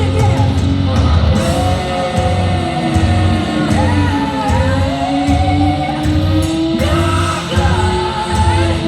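Hard rock band playing live in a large hall: a woman sings long, slowly sliding held notes over electric guitar, bass and a steady low drum pulse.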